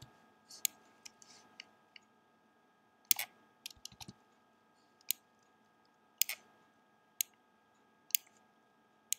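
Sharp, irregular clicks of a computer mouse and keyboard, roughly one every second, some in quick pairs. A faint steady hum lies beneath them.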